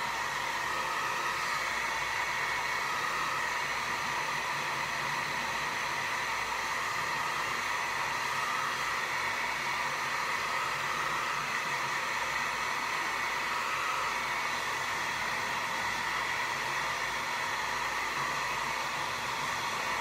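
Handheld hair dryer running steadily, blowing to dry a coat of white acrylic primer paint.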